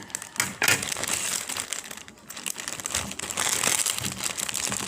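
Plastic packaging crinkling and crackling as it is handled, with a dip about two seconds in.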